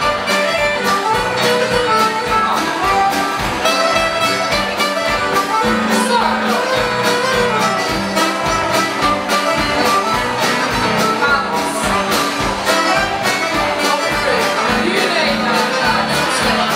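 Live folk dance band playing a brisk tune with saxophone over a steady beat.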